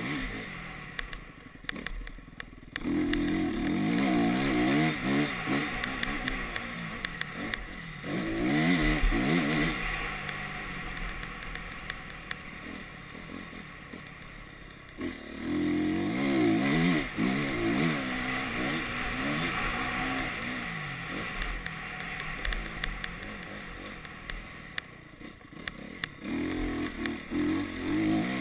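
Honda CRF single-cylinder four-stroke motocross bike ridden hard on dirt. It opens up in about four bursts of acceleration, the engine note rising and stepping through the gears, with quieter off-throttle stretches between.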